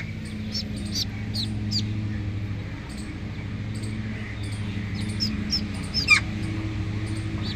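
Birds chirping: short, high, downward-sliding calls in small groups, the loudest about six seconds in, over a steady low drone.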